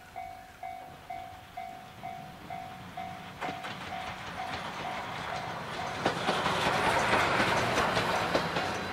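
Level-crossing alarm bell dinging about twice a second while the C57 steam locomotive's train comes by. From about three and a half seconds in, the train's passing noise and clacking wheels build up and grow louder, drowning the bell before it is heard again near the end.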